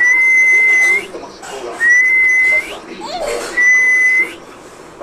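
A high, steady whistle-like tone, each one lasting just under a second and flicking up in pitch at its end, repeating about every two seconds.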